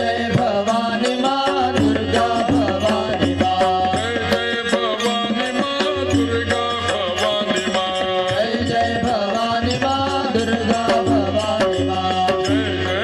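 Indian music with a voice singing over steady hand-drum percussion.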